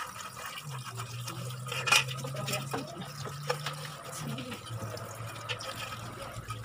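Wet laundry being lifted out of a top-loading washing machine's tub, with water sounds and a steady low machine hum that starts under a second in; a single knock about two seconds in.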